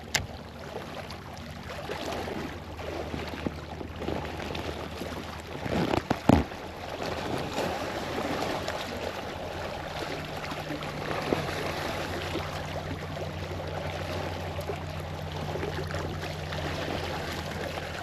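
Water lapping and sloshing around a small fishing boat, with a low steady hum throughout and two sharp knocks about six seconds in.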